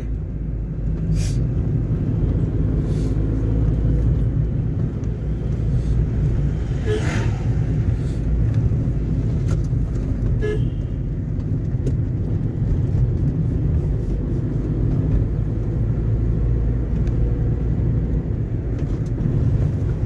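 Car engine and tyre rumble heard from inside the cabin while driving, steady throughout. A short horn toot comes about ten seconds in, with a brief sharper noise a few seconds before it.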